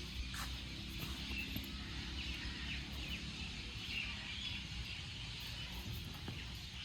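Outdoor ambience: a low, steady hum, with small birds chirping repeatedly over it.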